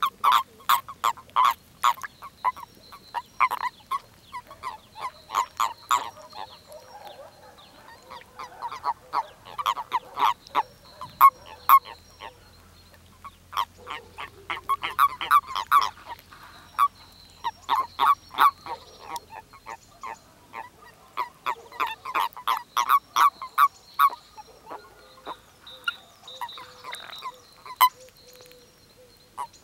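Common toads calling during spawning: rapid trains of short, croaking pulses, several toads overlapping, coming in bursts of a few seconds with short pauses between.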